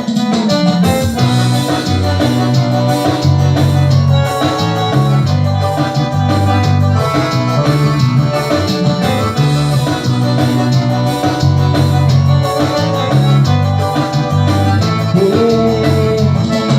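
Instrumental introduction of an upbeat Latin-style dance song by a band: keyboard and guitar over a repeating bass line and steady beat, before the vocals come in.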